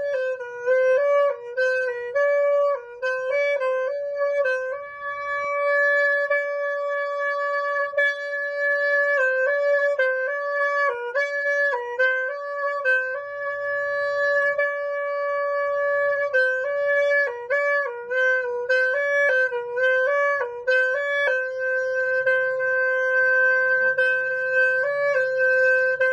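Music: a solo wind instrument playing a slow melody of held and moving notes, with a faint low drone joining about halfway through.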